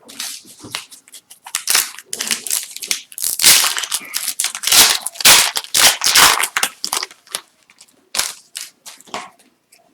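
Foil wrapper of an Upper Deck hockey card pack being torn open and crinkled in the hands: a dense run of crackling rustles, loudest in the middle, thinning to a few short rustles near the end.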